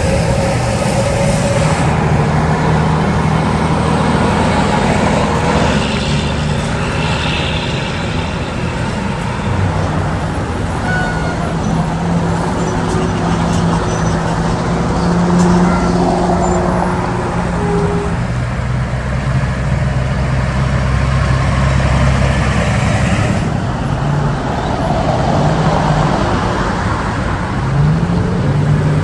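Heavy diesel semi-truck engines running steadily amid continuous road traffic noise, as trucks hauling oversize loads roll past. Near the end one engine's pitch rises as a truck accelerates.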